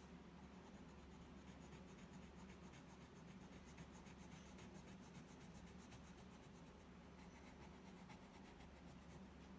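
Colored pencil shading on sketchbook paper: faint, rapid scratching strokes of the lead over the page, over a low steady hum.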